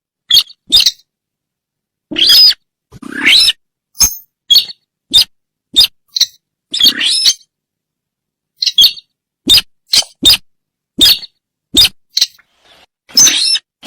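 Bird-call lure recording of the bird known in Indonesia as the sintar: a string of short, sharp, high-pitched calls, one to three a second with brief pauses, a few of them longer calls with a lower buzz beneath.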